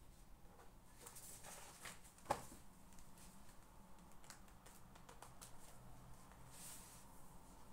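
Faint desk sounds of someone studying: light rustling and small clicks, with one sharp tap that rings briefly about two seconds in.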